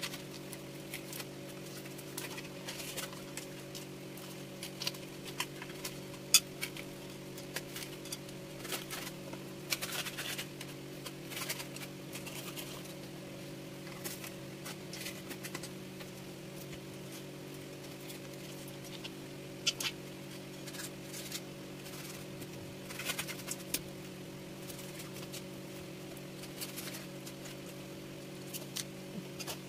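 Irregular scraping, rustling and clicking as the tough skin of a triggerfish is pulled and peeled by hand on a wooden chopping block, with a few sharp knocks on the block, over a steady low hum.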